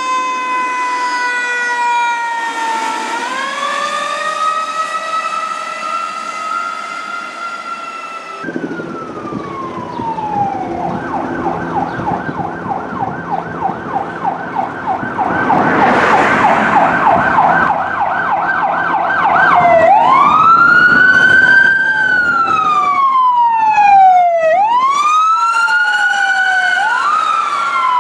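Fire truck sirens. A slow wail falls and then climbs again. About eight seconds in the sound cuts to a fast yelp, a few cycles a second, with an engine running underneath. Near the end it changes to a wail rising and falling every couple of seconds.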